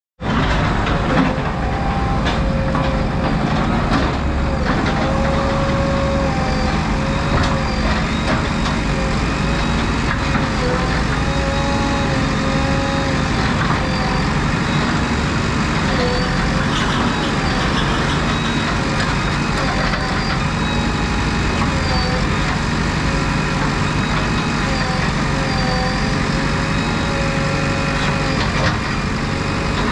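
JCB 3DX backhoe loader's diesel engine running steadily under work, with a wavering hydraulic whine that dips in pitch every few seconds as the machine loads mud.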